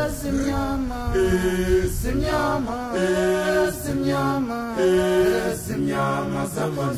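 Background vocal music: a chant-like song, with voices holding long notes that change pitch every second or so.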